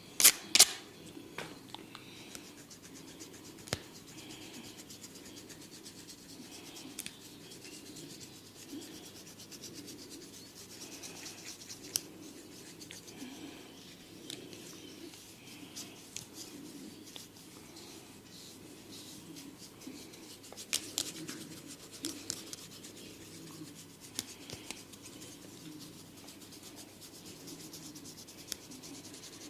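Head massage: rubbing and scratching through hair and across the scalp, a steady fine rustle with small ticks. Two loud sharp cracks right at the start and a few single snaps later on.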